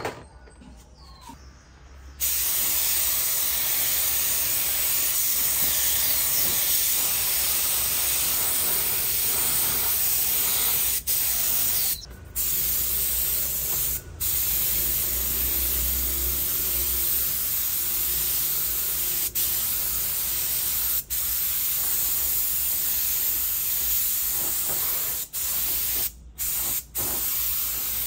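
Loud, steady hiss of a handheld spray gun jetting, starting about two seconds in and cut by several brief pauses as the trigger is let go and squeezed again.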